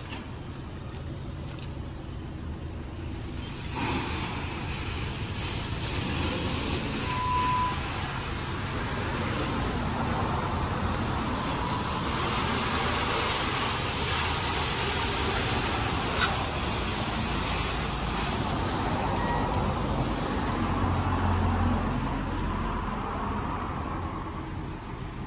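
Autec 260 soft-touch automatic car wash spraying water: an even hiss of spray starts about three seconds in over a steady low hum from the idling car and the wash machinery. There is a short beep about seven seconds in.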